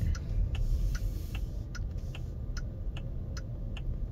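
A NIO car's indicator ticking evenly, about two to three ticks a second, heard inside the cabin over a low steady rumble of the slowly moving car.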